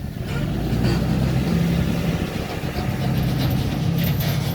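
A motor vehicle engine running, a steady low hum that swells about a quarter-second in.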